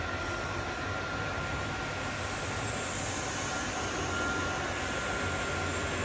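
Maho MH 600 milling machine's feed drive running steadily, moving the knee vertically in feed: a low hum with a thin, steady high whine over it.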